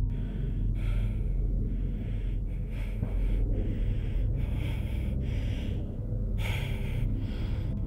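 A man gasping and breathing hard in a run of short, sharp breaths over a steady low rumble.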